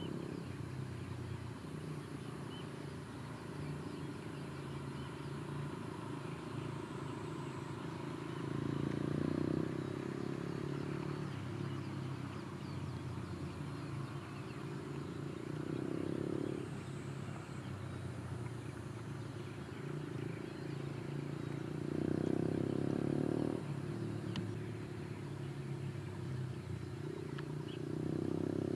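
Distant vehicle noise: a steady low hum that swells louder about every six to seven seconds.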